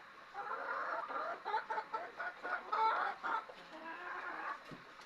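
A flock of laying hens clucking, many short overlapping calls.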